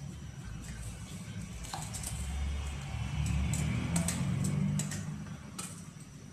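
Several sharp clinks of steel utensils against a steel cooking pot, spread between about two and six seconds in, over the steady low rumble of a gas burner under a pot of boiling rice.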